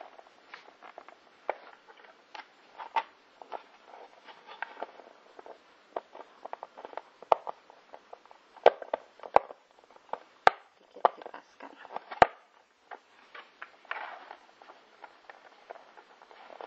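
Hard plastic clicking, tapping and rubbing as a small plastic spoon is handled and pushed into the slot on a plastic food-container lid, with a cluster of sharper clicks midway through.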